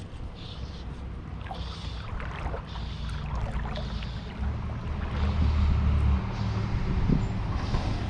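Wind noise rumbling on a GoPro microphone over the steady rush of a shallow, rocky mountain stream. The wind rumble grows louder about halfway through.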